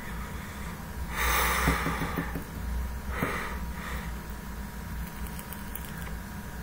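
A man's breath pushed out hard into the microphone about a second in, then two shorter breaths a couple of seconds later, over a low steady hum.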